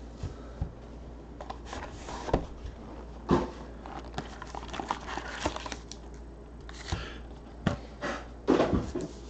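Trading-card hobby box being opened and its card packs handled: scattered light knocks and taps of cardboard and packs on the table, with rustling of packaging that grows longer near the end.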